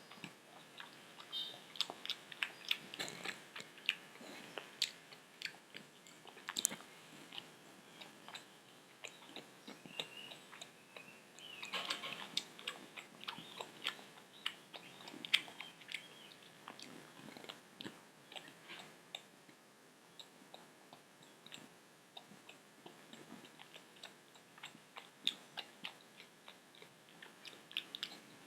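Close-up chewing and biting of homemade cheese pizza: soft wet mouth noises with frequent sharp little clicks and the odd crunch of crust, a busier stretch about twelve seconds in.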